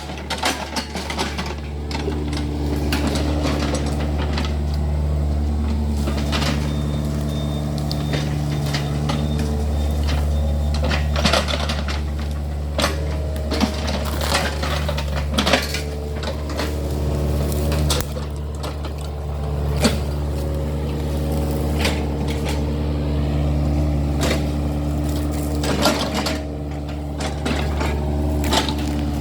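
Yanmar excavator's diesel engine running steadily, its pitch shifting slightly as the load changes, with repeated metallic clanks and scrapes from the bucket digging out a ditch.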